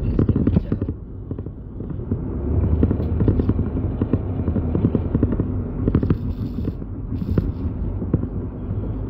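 Steady low rumble inside a car cabin, with dense crackling and clicking over it that comes and goes, heaviest in the first second and again from about two and a half to four seconds in.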